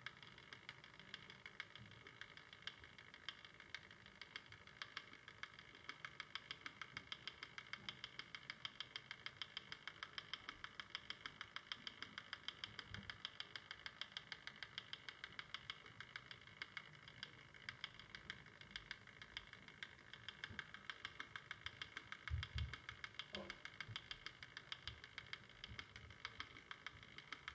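Faint, even ticking from a motorized rotating display turntable, several ticks a second. A few soft low thumps come about two-thirds of the way through.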